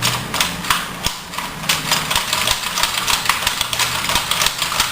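Plastic clicking from a Nerf N-Strike toy blaster being worked by hand, a few separate clicks and then rapid clicking several times a second from about a second and a half in. The blaster is not firing.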